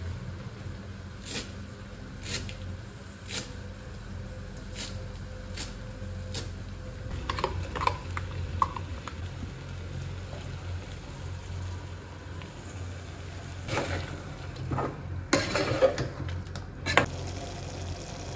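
Cooking in an aluminium pressure cooker pot on a gas stove: a steady low hum, with light ticks about once a second that stop about six seconds in. Then come metal clinks of utensils, and near the end louder scraping and stirring sounds in the pot.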